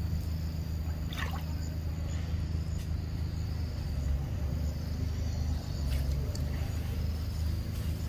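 Forest ambience: a steady low rumble under a steady high drone of insects, with one short squeak falling in pitch about a second in.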